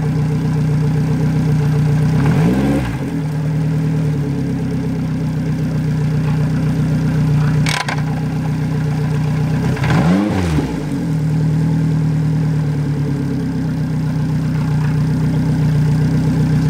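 Yamaha 90 hp four-stroke outboard motor running on its mount on a trailered boat, idling steadily. It is revved briefly twice, about two and ten seconds in, the pitch rising and falling back each time. A sharp click sounds near the middle.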